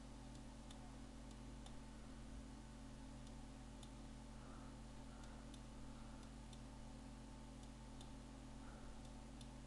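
Faint computer-mouse clicks, about a dozen at irregular intervals, over a steady low hum: near silence otherwise.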